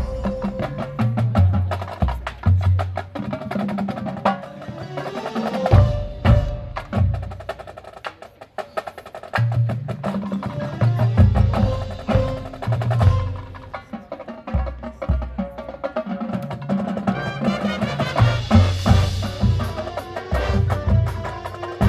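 Marching band percussion playing a loud rhythmic passage: rapid crisp strokes and rolls over clusters of heavy low drum hits, with some sustained pitched notes underneath.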